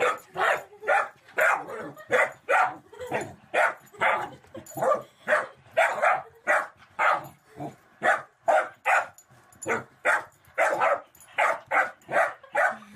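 A puppy barking over and over at a moving toy dog, about two barks a second.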